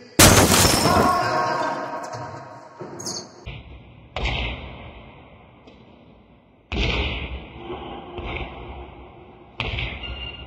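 Indoor basketball play: a loud bang about a quarter second in that rings on for a couple of seconds, then more sudden thuds of the ball, all echoing in a sports hall.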